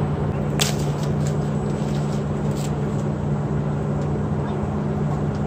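Vehicle engine idling with a steady low hum. There is a sharp click about half a second in.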